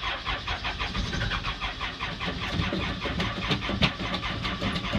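Case backhoe's diesel engine being cranked over by the starter in a hard cold start, an even, rapid chugging of compression strokes without the engine catching. It has sat for weeks in the cold and its batteries look low.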